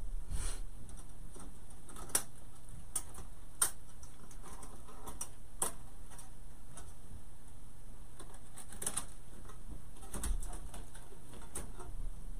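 Handling noise of craft wire being twisted onto a grapevine wreath frame: scattered light clicks and rustles at irregular intervals over a low steady hum.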